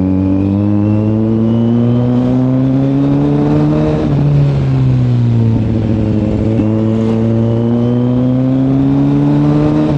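Kawasaki Z900 inline-four engine pulling under way. Its pitch climbs for about four seconds, falls away, then climbs again before dropping once more right at the end. The exhaust note is open and free.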